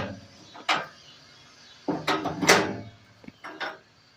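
Loose steel pieces being handled on a steel-topped welding table: a series of sharp clanks and knocks, with several close together about two seconds in.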